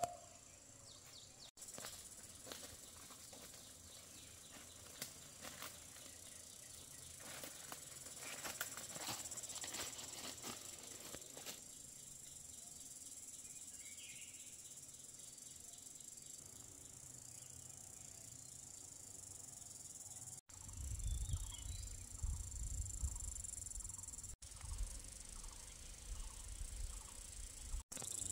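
Forest ambience dominated by a steady, high-pitched chorus of insects, with some rustling in the first part and a low rumble in the later part.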